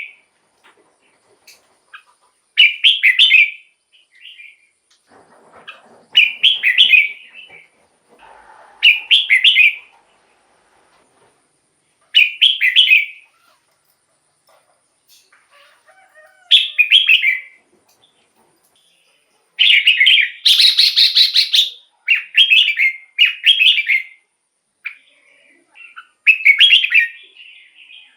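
Red-whiskered bulbul singing short, bright phrases every three to four seconds, with a longer run of several phrases in quick succession about twenty seconds in.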